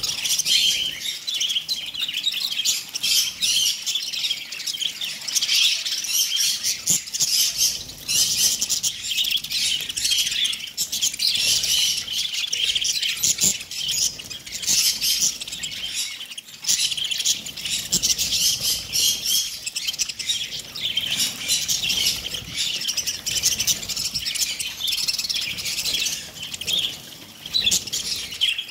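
A large flock of budgerigars chattering all together: a dense, unbroken mass of high chirps and warbles.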